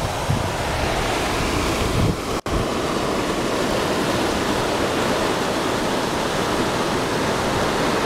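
Steady loud rush of a tidal river pouring over a rapid that is almost a waterfall at low tide, with a momentary dropout about two and a half seconds in.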